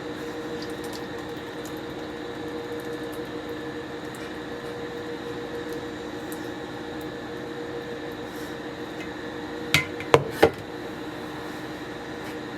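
Steady background hum with three sharp knocks close together about ten seconds in, like hard dishes or a container being handled and set down.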